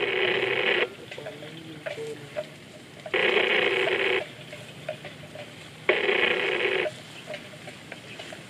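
A phone ringing in a repeating pattern: three rings of about a second each, one every three seconds, with faint small clicks in the gaps between them.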